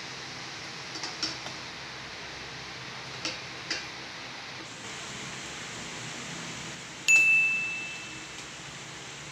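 Lumpia deep-frying in hot oil with a steady hiss, and metal tongs clicking against the stainless steel pot a few times as the rolls are turned. About seven seconds in comes a sharp metallic strike that rings with a clear high tone, fading over about a second.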